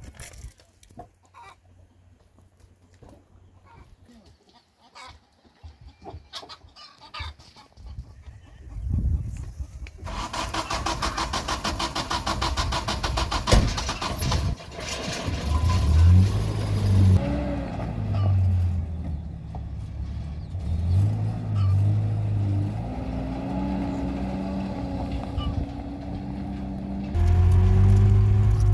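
Pickup truck engine: it comes in suddenly about ten seconds in with a dense, fast ticking, then revs up and down several times as the truck pulls away, and grows louder near the end. Before that there are faint, scattered farmyard animal sounds.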